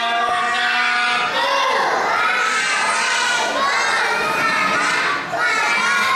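Many young children's voices shouting together in a classroom, with a brief dip a little after five seconds.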